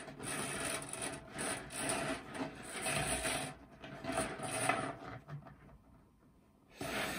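Bare copper wire coil scraping and rattling against a wooden desktop as it is pushed and straightened by hand, in irregular rubbing strokes with small knocks, stopping about five and a half seconds in.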